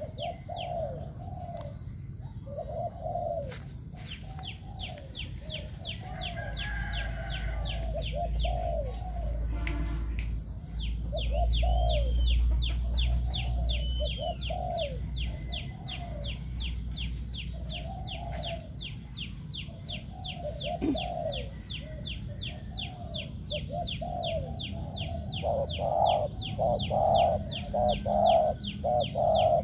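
Caged spotted dove cooing over and over in phrases of low arched notes, which come louder and faster near the end. A fast, even run of high chirps goes on underneath.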